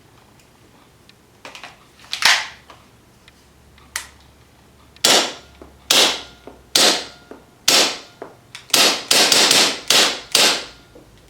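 KWA KMP9R gas blowback airsoft submachine gun firing with only the muzzle thread adapter fitted, no amplifier: sharp cracks, first a few single shots about a second apart, then a quick string of about five shots near the end.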